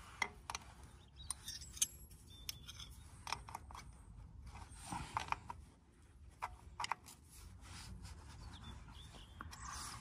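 Steel open-ended spanner clicking and scraping on the brass union nuts of a Massey Ferguson 290's fuel lines at the filter head, loosening them one by one to bleed air from the diesel fuel system. Scattered, irregular light metal clicks with no engine running.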